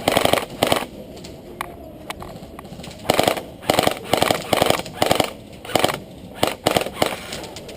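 Airsoft electric rifles firing a series of short full-auto bursts, each a rapid string of clicks, with quieter gaps between the bursts.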